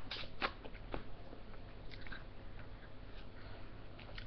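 Faint, scattered crunching and mouth sounds of someone biting into and eating an ice lolly, with a few short sharp crunches, most of them in the first second.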